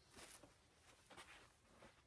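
Near silence, with a few faint short rustles of clothing being handled, about a fifth of a second in, around a second in, and near the end.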